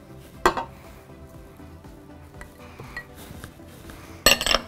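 Kitchenware clinking: a small dish knocks once against the stainless steel mixer bowl about half a second in, and near the end comes a short clatter of several quick knocks as dishes are set down.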